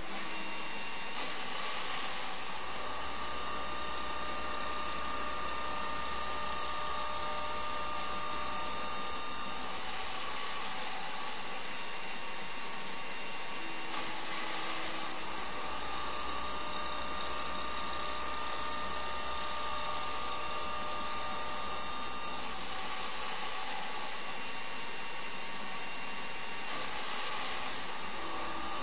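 CNC machine spindle running and cutting: a steady, high, whining machine noise whose tone shifts in a cycle that repeats about every twelve seconds.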